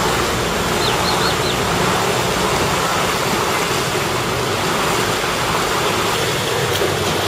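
High-tide seawater rushing and splashing as it pours over and along a street curb, a steady rush.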